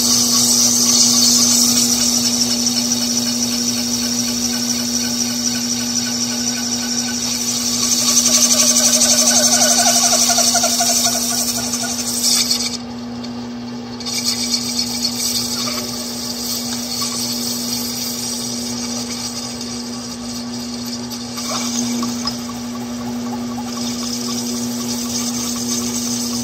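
Lathe-mill turning ABS plastic pipe, the tool cutting off long stringy shavings: a steady motor hum under a loud hissing cut. About halfway through the cutting noise breaks off for a second or so, then resumes more lightly.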